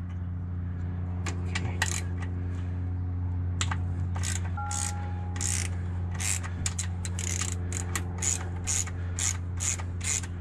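Hand socket ratchet clicking as bolts are backed out of a TH400 automatic transmission's valve body: scattered clicks at first, then a steady run of about three clicks a second from about halfway through. A steady low hum runs underneath.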